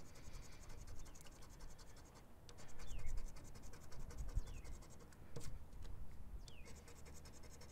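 Scratching the latex coating off a scratch-off lottery ticket: quick, repeated rasping strokes across the card.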